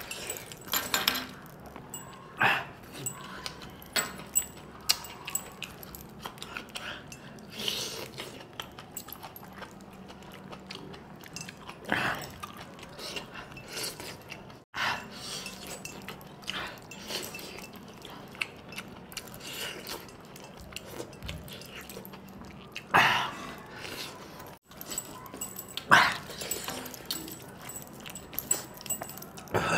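Close-up eating sounds of a man eating mutton curry and rice by hand: chewing and mouth noises, with a few louder ones scattered through.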